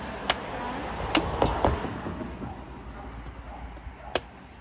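Machete chopping the husk of a young green coconut on a wooden stump: several sharp strikes in the first two seconds, then one more near the end.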